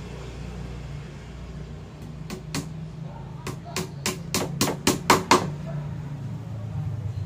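About a dozen sharp knocks in quick succession, coming faster and louder over about three seconds and then stopping, over a steady low hum.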